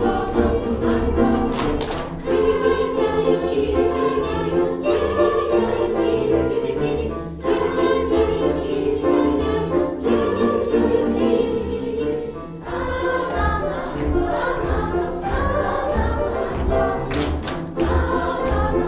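Children's choir singing a canon, with several voice lines overlapping, over a low pulsing beat.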